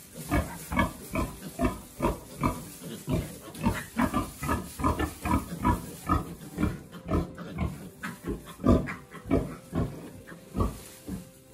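Sow grunting in a steady run of short grunts, about three a second, growing quieter near the end.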